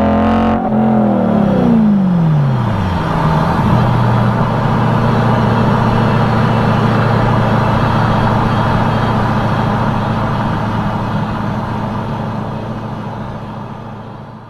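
BMW E92 M3's 4.0-litre V8 holding revs briefly, then dropping smoothly back to a steady idle that fades out near the end.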